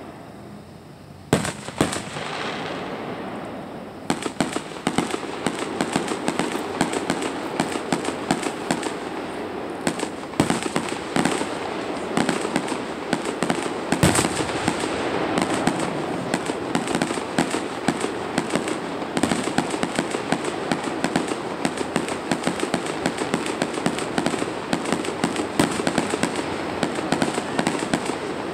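Aerial firework shells bursting: two sharp reports about a second and two seconds in, then from about four seconds in a dense, unbroken barrage of rapid bangs and pops.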